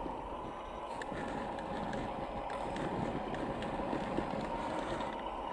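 1/10-scale RC crawler's 550-size electric motor and gearbox whirring under load as it climbs a rutted dirt gully, with scattered small ticks from the tyres on the dry clods.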